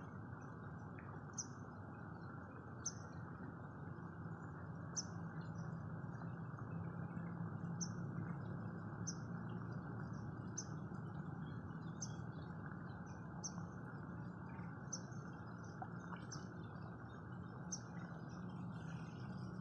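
A bird giving one short, high chirp over and over, evenly about every second and a half, over a steady low outdoor rumble.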